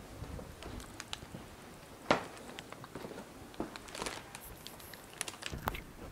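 Footsteps scuffing and clicking on broken stone cobbles, irregular, with one sharper click about two seconds in.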